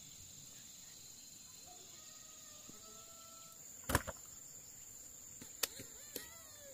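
Insects buzzing steadily in one high-pitched tone, with a single sharp knock about four seconds in and a few fainter clicks after it.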